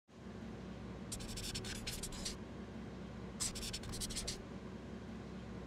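Pen writing on paper: two runs of quick scratching strokes, the first about a second in and the second around three and a half seconds in, over a faint low hum.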